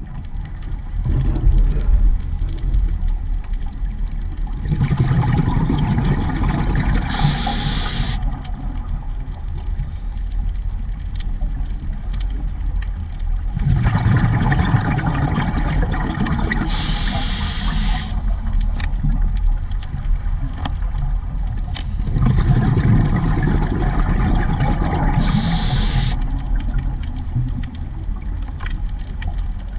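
Scuba diver breathing through a regulator underwater: three long surges of bubbling rumble, each ending with a short hiss, about every nine seconds.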